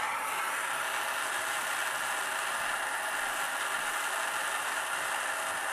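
Plumbing torch flame burning with a steady hiss while heating a copper pipe joint for soldering.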